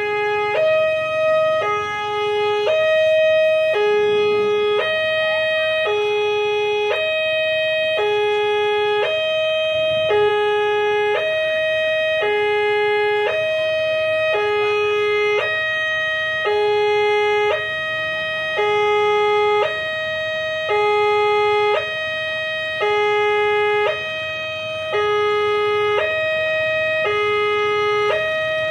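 Electronic railway level-crossing alarm sounding a two-tone ding-dong, a higher and a lower tone of about a second each, one cycle about every two seconds. It warns that a train is approaching, with the barrier lowered across the road.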